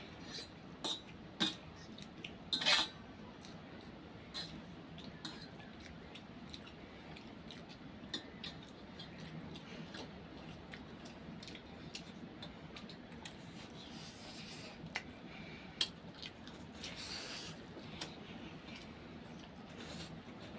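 Fork and spoon clinking and scraping on steel plates while noodles are eaten, scattered sharp clicks throughout, with a few short slurps of noodles.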